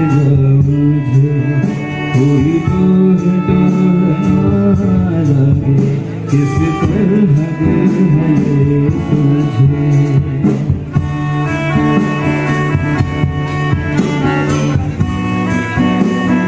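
Live band playing through PA speakers: a singer backed by keyboard and drums, with a steady beat.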